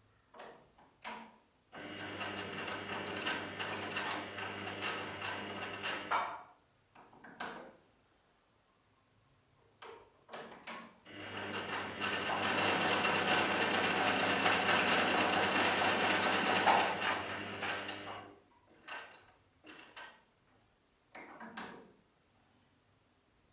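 Electric sewing machine stitching in two runs of several seconds each, the motor hum under a fast needle clatter, the second run longer and louder. Between and after the runs come short clicks and knocks as the machine stops at a corner, the needle is lowered and the fabric is turned.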